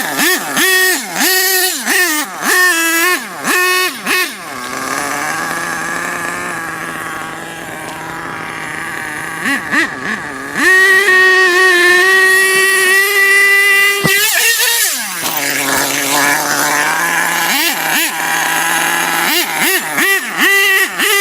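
Radio-controlled car's motor revving in quick throttle blips, its pitch swooping up and down, then holding a steady high pitch at full speed for a few seconds about halfway through before falling away, and blipping again near the end.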